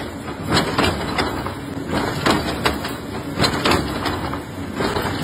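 Hexagonal wire mesh weaving machine running, a steady mechanical rattle broken by irregular sharp metallic knocks.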